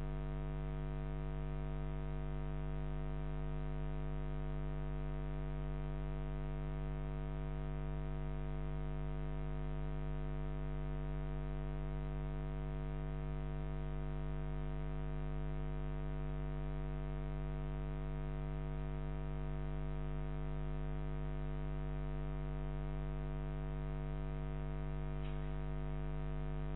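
Steady electrical mains hum with many overtones, carried on a security camera's audio line.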